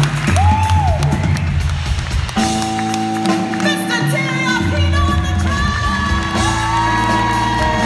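Live band playing, with a woman singing long, sliding held notes over sustained chords and a bass line.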